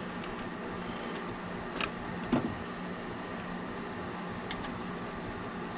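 Steady background hum with a low tone, broken by a sharp click just under two seconds in, a soft knock shortly after, and a faint tick later: small handling noises as control wires are worked into the terminal block.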